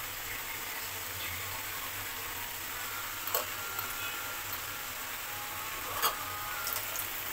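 Mixed vegetable curry sizzling steadily in a metal kadai, with two sharp clicks, one about three seconds in and one about six seconds in.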